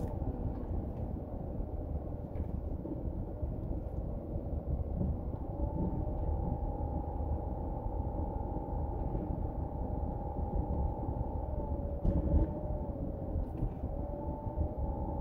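Car driving slowly, heard from inside the cabin: steady road and engine rumble, with a hum that shifts in pitch a few times.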